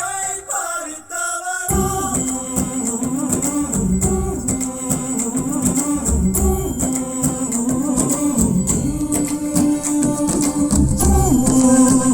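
Music with singing and hand percussion played back through a Thule IA100 stereo amplifier and Adams HM1 speakers; bass and drums come in suddenly a couple of seconds in.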